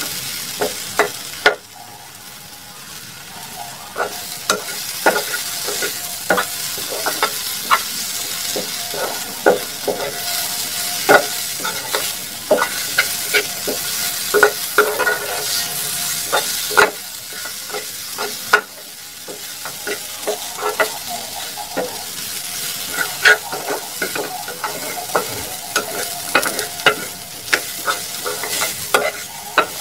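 Sliced okra sizzling in oil in a frying pan as it is stir-fried, with a metal spatula scraping and clicking against the pan over a steady sizzle. The sizzle drops off suddenly twice, about a second and a half in and a little past the middle, and builds back up over a few seconds.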